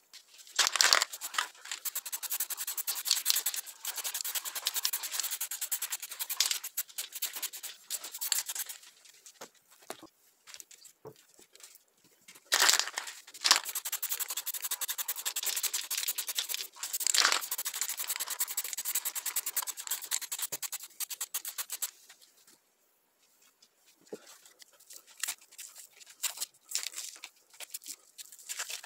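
Aerosol spray paint can hissing in two long bursts as paint is sprayed, each starting with a sharp spit. After a pause, faint crackling of masking tape being peeled off near the end.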